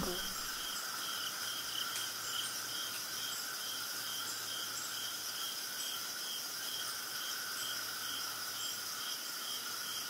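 Afternoon forest ambience dominated by a steady cricket chorus: continuous high trilling, with one insect pulsing about two to three times a second. Faint short high chirps come now and then.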